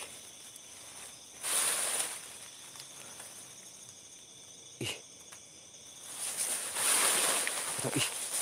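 Crickets and other night insects chirring steadily in high, even tones. Two longer bursts of rustling hiss come over them, one about a second and a half in and one over the last two seconds, with a short knock about five seconds in.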